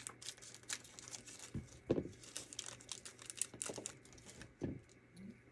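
A small clear plastic bag crinkling as it is cut open with scissors and handled, with scattered light crackles and small clicks.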